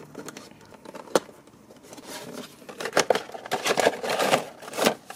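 A small blade slitting the tape seals on a cardboard action-figure box, then the box being opened and handled. There is a sharp click about a second in, then irregular scraping, rustling and crinkling of cardboard and plastic.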